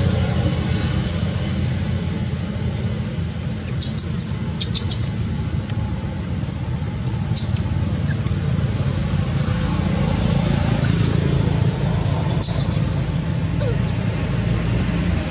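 A steady low outdoor rumble of wind or distant traffic. Over it come a few short, high squeaks: a cluster about four seconds in, a single one near seven seconds, and more from about twelve seconds on.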